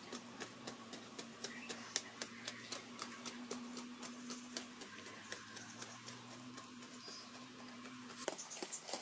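Sharpened wooden digging sticks striking and prying into packed dirt: an irregular run of short dull knocks and scrapes, several a second. A thin steady high whine sits behind them and stops near the end.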